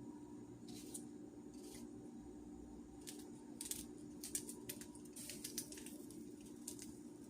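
A knife cutting garlic cloves: irregular short, crisp cuts, coming thickest in the middle of the stretch, over a faint steady low hum.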